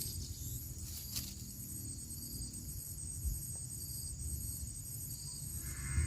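Insects calling steadily at a high pitch, in repeating pulses about a second long, over a low rumble; a single sharp click about a second in.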